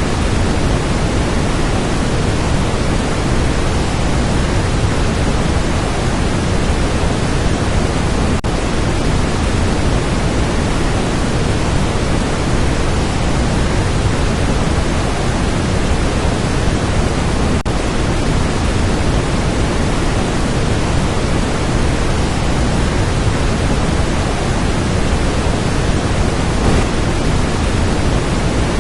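Waterfall: a steady, loud rush of falling water, an even noise that does not change.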